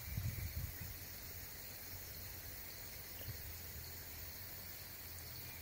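Faint steady outdoor ambience: a high insect drone under a low rumble that swells briefly in the first half second.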